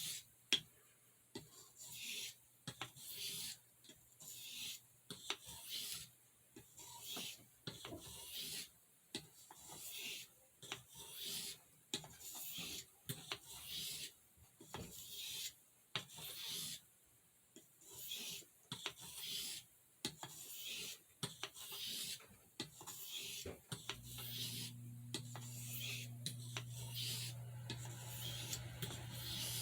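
Pocketknife pen blade being stroked across a soft Arkansas oilstone, a long run of quiet, even scraping passes at about one a second: finishing strokes that refine the edge after the burr has been taken off. A steady low hum comes in near the end.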